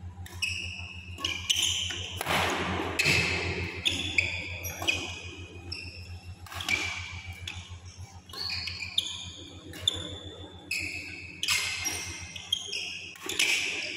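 Badminton rally: sharp racket strikes on the shuttlecock every second or two, mixed with short high squeaks of court shoes on the mat, over a steady low hum.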